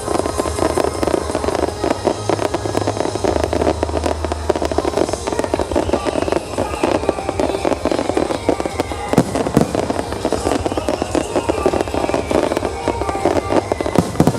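Aerial fireworks display: a dense, continuous crackle of popping shells, with a few heavier bursts a little after nine seconds in. Music plays over loudspeakers underneath.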